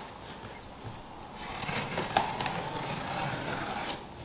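Cardboard box being opened by hand: flaps scraping and packing paper rustling, louder from about a second and a half in, with a couple of sharp clicks around two seconds.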